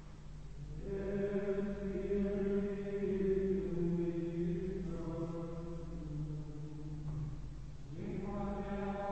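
Carthusian plainchant sung by men's voices in unison: slow, sustained melodic phrases, the first entering about a second in and a new phrase beginning near the end.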